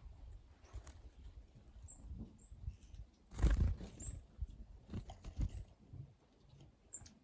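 Wild birds at a garden bird bath giving short, high call notes several times, over uneven low bumps and rustling. A louder burst of noise comes about three and a half seconds in.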